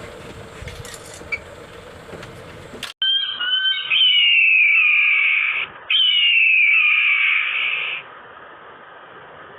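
An animal calling twice, two long, loud, high calls that each glide down in pitch, after a few seconds of quieter background noise with scattered clicks.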